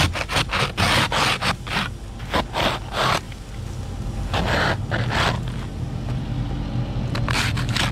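Ice and snow being scraped off a vehicle: a run of quick scraping strokes in the first three seconds, two more about four and a half seconds in, and a short one near the end, over a steady low hum.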